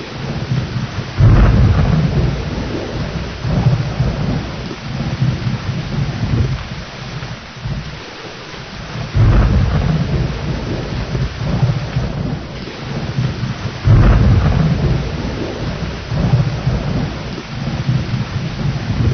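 Thunderstorm: steady heavy rain with rolling thunder, three sudden low rumbles breaking in about a second, nine seconds and fourteen seconds in, each dying away over a few seconds.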